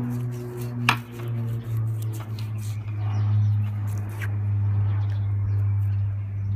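A potato being forced onto the sharp end of a galvanised steel pipe, the pipe edge cutting a plug out of it, with a couple of sharp crunches about a second in and again near four seconds. A steady low hum runs underneath throughout.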